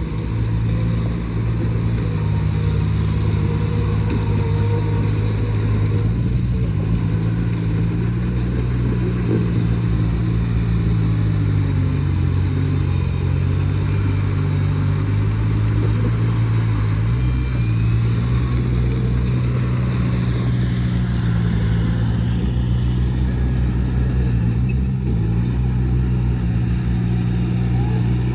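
Heavy earthmoving machine's diesel engine running steadily, its pitch wavering and dipping slightly now and then.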